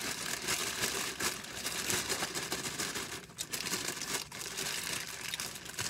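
Paper food wrapping crinkling and rustling as it is handled, with many small crackles throughout.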